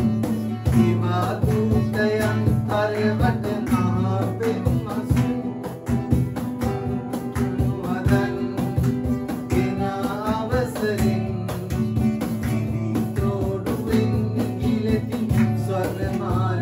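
Acoustic guitar strummed steadily to accompany singing of a song.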